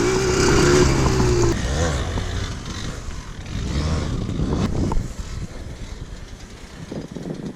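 Yamaha DT 125 two-stroke single-cylinder engine running at a steady pitch for the first second and a half, then growing fainter, with a brief swell about four seconds in.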